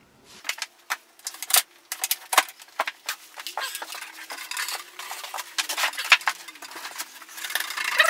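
Handling noise: irregular clicks, clinks and knocks as the diesel heater's board-and-pipe window mount is worked on and picked up, over a faint steady hum.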